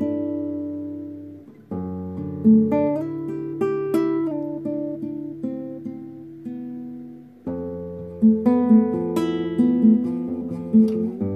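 Classical guitar played fingerstyle in a melodic improvisation: plucked melody notes over ringing bass and chords, in phrases that die away about a second and a half in and again about seven seconds in before new ones begin.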